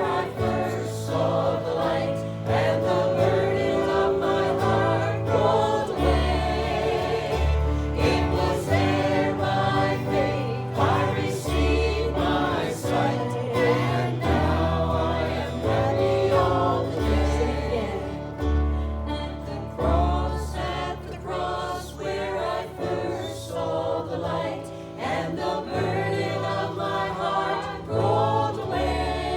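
A group of voices singing a gospel worship song together, over instrumental accompaniment with a bass line that moves every second or two.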